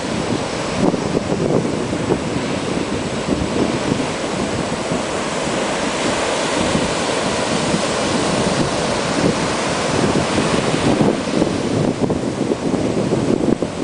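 Baltic Sea surf breaking and washing up a sandy beach in a steady, surging roar, with wind buffeting the microphone.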